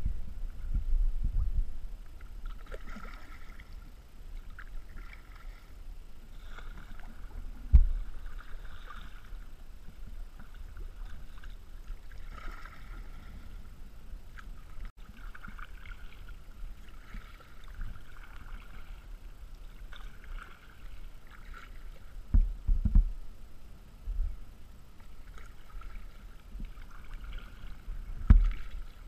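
Kayak paddling: double-bladed paddle strokes swishing and splashing in the water about every couple of seconds, with a few low thumps now and then.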